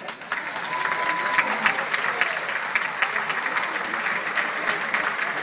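Audience clapping: dense, steady applause that builds up over the first second and keeps going. A brief steady high tone sounds about a second in.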